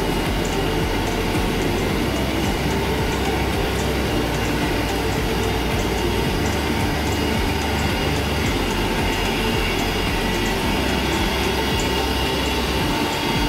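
Snack production line machinery running: geared drive motors, pumps and conveyor making a steady rumble and hum, with a light regular ticking.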